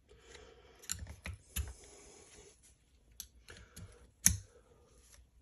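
Light clicks and taps of small hand tools and parts being handled at a workbench, with one sharper click about four seconds in.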